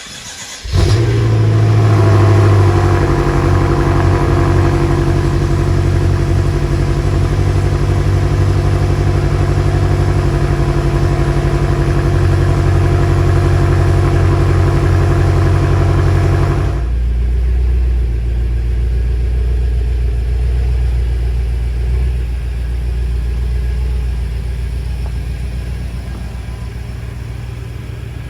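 BMW M5 F10's twin-turbo V8 starting up less than a second in and running at a fast idle, then dropping to a lower, steady idle about 17 seconds in.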